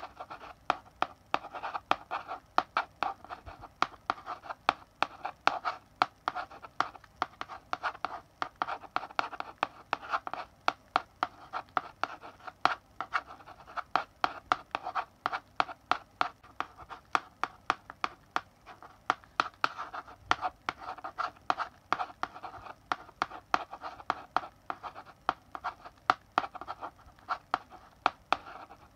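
Chalk writing on a blackboard: continual scratchy strokes with frequent sharp taps as the chalk strikes the board, several a second.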